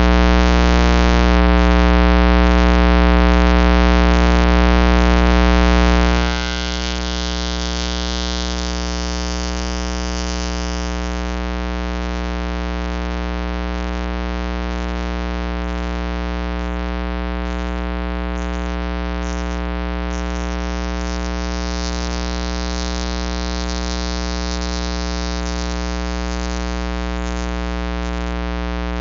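Loud steady electronic hum made of many held tones at once, with no speech; it drops in level about six seconds in and then holds steady. It is a fault in the live stream's audio that a viewer calls bad.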